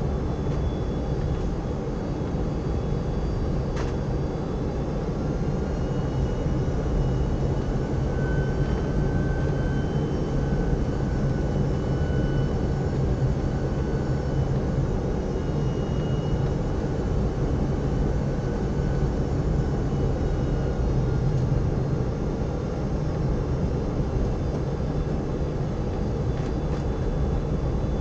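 Steady cabin noise inside a Boeing 747-400 descending on approach: the even drone of airflow and jet engines heard from an upper-deck window seat, with faint whining tones that come and go above it.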